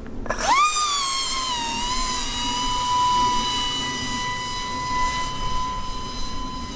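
Brushless electric motor (T-Motor F80, 2500 KV) and three-bladed prop of a flying wing revving up sharply at hand-launch, briefly overshooting and then settling into a steady high-pitched whine as the wing climbs away.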